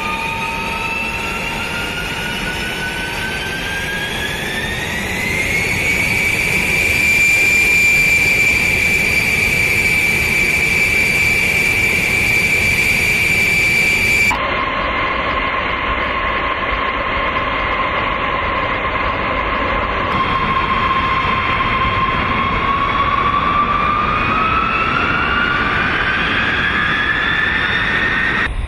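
B-52 bomber's turbofan jet engines spooling up on the ramp: a loud rushing noise with a whine that climbs in pitch over the first several seconds and then holds steady. After a cut about halfway through, a second steady engine whine rises in pitch again near the end.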